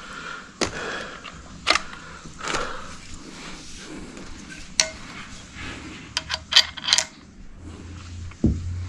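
Small hard objects being handled: scattered sharp clicks, then a quick run of light metallic clinks about six to seven seconds in.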